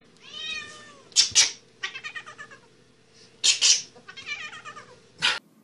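Domestic cat yowling as it is handled and picked up: one long drawn-out call, then shorter calls, broken by several loud short noisy bursts.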